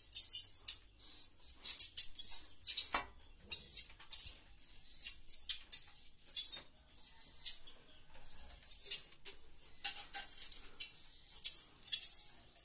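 Edible-nest swiftlets twittering: a dense, continuous stream of rapid, high-pitched chirps, with a few sharp knocks mixed in.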